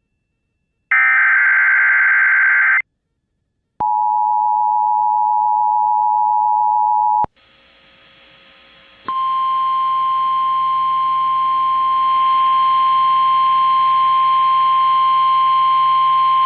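Emergency Alert System tones: one harsh, screeching burst of SAME header data, then, after a short gap, the two-tone EAS attention signal sounding for about three and a half seconds. After a moment of faint static, a single steady alarm tone begins about nine seconds in and holds to the end. This is the 1050 Hz NOAA Weather Radio warning tone that comes before a severe-weather message.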